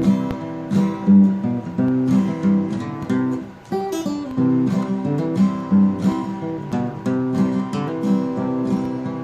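Acoustic guitar strumming chords as the instrumental opening of a song, with a brief break a little before the middle.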